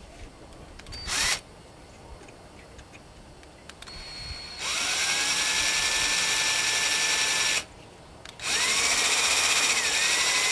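Cordless drill with a small bit drilling weep holes in a metal bottom-rail extrusion. A short blip about a second in. Then the motor whines up in pitch and runs steadily for about three seconds, stops, and starts again a second later.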